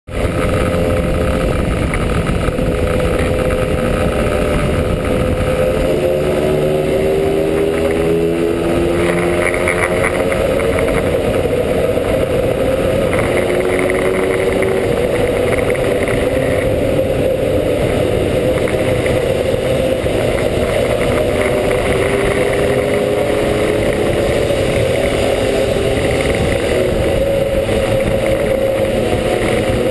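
Lambretta GP scooter with a TS1 kit, its single-cylinder two-stroke engine running at road speed. The engine note rises and falls as the throttle and gears change, over a steady low road rumble.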